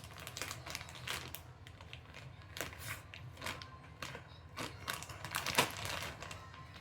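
A plastic treat bag crinkling and crackling in irregular bursts as a Shiba Inu bites and tugs at it, trying to get it open.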